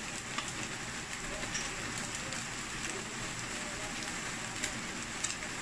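Scrambled egg frying in oil in a stainless steel wok: a steady sizzle with scattered crackles and pops of the hot oil.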